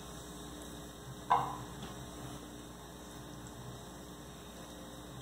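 Steady low electrical hum, with one sharp clink about a second in as metal kitchen tongs strike a glass baking dish.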